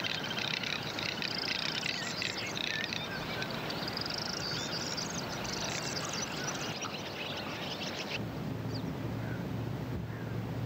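Garganey drake calling: a dry, crackling rattle like a half-empty matchbox being shaken, repeated in quick runs. About eight seconds in it cuts off and a steady low rumble with a few faint chirps takes over.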